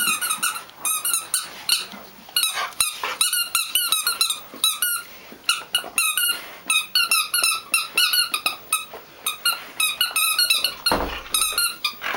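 A dog's rubber squeaky toy squeaking over and over in quick, irregular runs of short high squeaks as the dog chews it. A low bump sounds about eleven seconds in.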